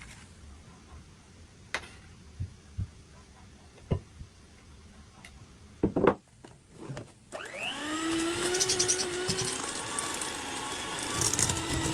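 A few scattered knocks and clatters, then about seven seconds in a small electric kitchen appliance motor starts, rising in pitch as it spins up, and runs steadily and loudly.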